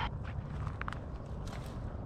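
Footsteps in dry grass and brush at a pond's edge, a few scattered crunches and rustles over a steady low rumble.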